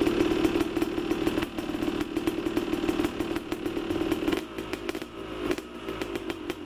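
Handheld electric grinder cutting into a steel motorcycle drive chain: a steady motor whine with dense crackle from the wheel biting the metal. It eases off slightly a little past the middle.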